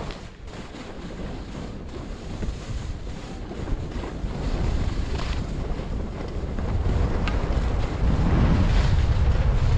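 Wind rushing and buffeting over the microphone of a downhill skier, with the hiss of skis sliding on packed, groomed snow. The rumble grows louder in the second half.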